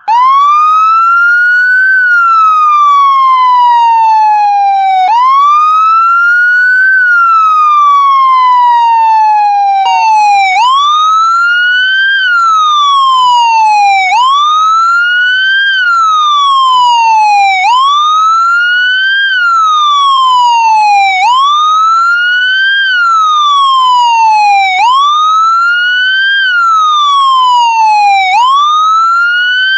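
Police car siren sounding a wail, its pitch climbing and sliding back down over and over. For the first ten seconds or so each rise and fall is slow, about five seconds long; then it switches to a quicker wail of about three and a half seconds per cycle.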